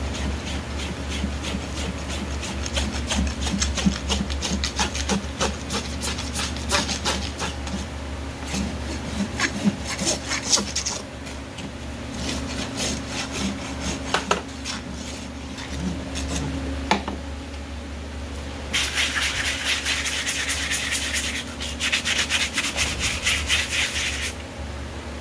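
Farrier's hoof rasp scraping across a horse's hoof wall in repeated strokes. Near the end it runs in two denser, steadier stretches of hissing rasping.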